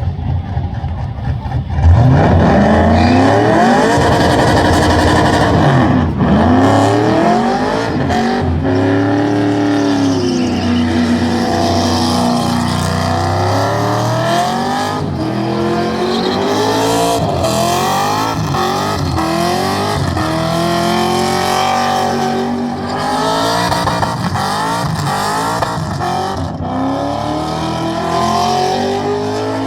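Burnout car's engine revving hard at high rpm, its pitch swinging up and down again and again. The engine jumps in loudness about two seconds in, with a hissing haze over it.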